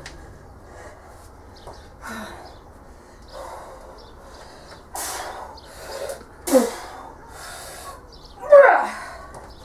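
A person straining hard to bend a Grade 5 steel bolt by hand: a series of forceful, noisy exhalations and two loud strained grunts that fall in pitch, the second being the loudest, near the end.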